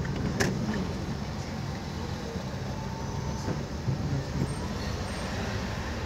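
Steady engine and road noise heard from inside a moving car, with a single sharp click about half a second in.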